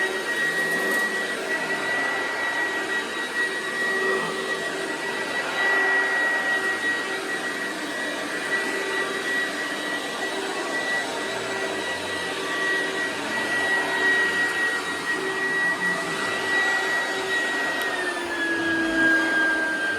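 1996 Oreck XL9200 upright vacuum running on high speed with a steady whine over a rush of air. About eighteen seconds in, the pitch slides down and settles lower as it is switched to its low speed.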